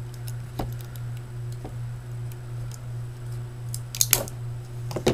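Sharp clicks and taps of small hard parts being handled while freeing a die-cast model from its packaging ties, a few single ones early and a louder cluster about four and five seconds in. Under them runs the steady low hum of an electric fan.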